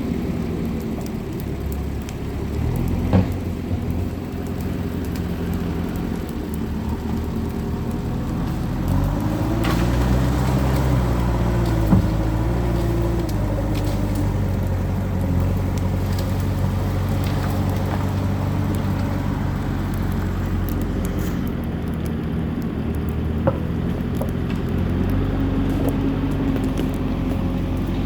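Bonfire burning with a few sharp pops, over a steady low rumble with engine-like droning tones that rise and fall about ten seconds in.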